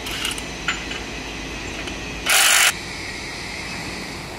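Pipe welding turning roll running under test, its motor and helical-gear drive giving a steady mechanical hum. About two seconds in, a short loud burst of hiss cuts in and stops under half a second later.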